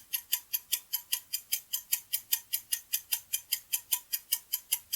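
Clock-ticking sound effect used as a quiz countdown timer: a fast, even run of sharp ticks.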